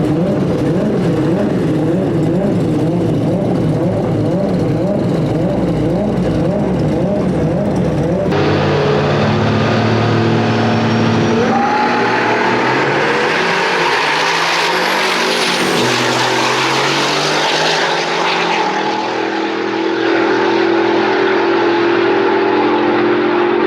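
Drag-racing truck engines: one engine revs up and down in a steady wobble for the first eight seconds or so. After an abrupt cut, an engine pulls hard through its gears, climbing in pitch under rising noise, eases briefly, then holds a steady tone.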